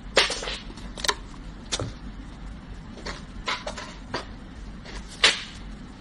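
Irregular light taps and knocks on a hard surface, about eight in six seconds, the loudest about five seconds in, over a steady low hum.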